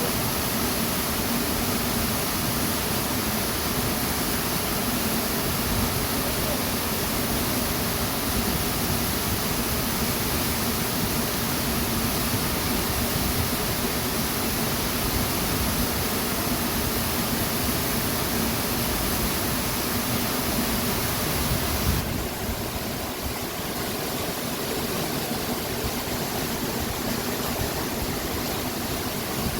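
Waterfall: steady rushing of falling water, stepping down slightly in level and brightness about three-quarters of the way through.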